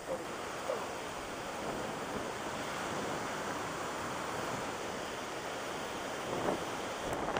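Hurricane-force wind buffeting the microphone: a steady rushing noise that swells in a gust near the end.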